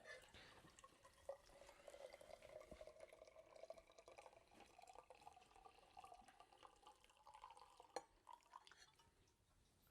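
Faint trickle of tea being poured into a mug, its pitch slowly rising as it fills.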